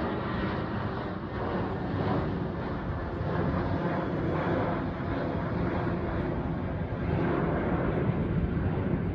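Jet airliner's engines at climb power just after takeoff, a steady noise as the plane climbs away overhead.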